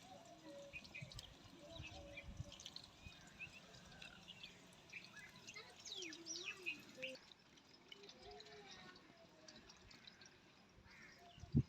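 Faint background of small birds chirping, with quick rising and falling chirps scattered through.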